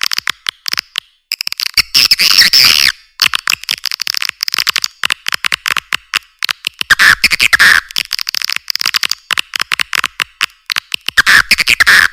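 Swiftlet calls played as a lure sound for a swiftlet house: rapid trains of dry clicks with bursts of shrill chirping twitter, in short phrases separated by brief gaps. The louder twittering comes about two seconds in, around seven seconds, and near the end.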